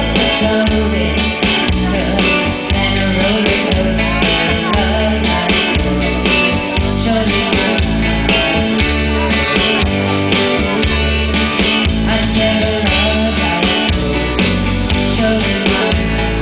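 Live pop-rock song performance: guitar and a steady, repeating bass line with a singer's voice over them.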